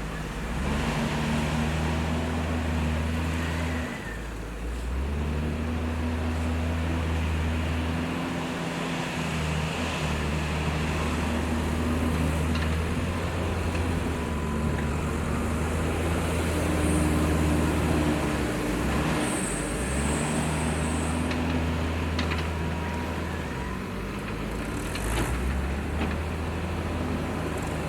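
Heavy diesel engine of a JCB 432ZX wheel loader working, its low note dropping and picking up again every few seconds as the load changes. A brief high squeal about twenty seconds in.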